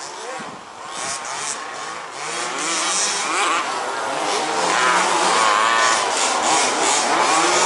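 Several 1/5-scale RC buggies' small two-stroke petrol engines revving up and easing off as they race, the pitches overlapping and rising and falling, getting louder about two seconds in.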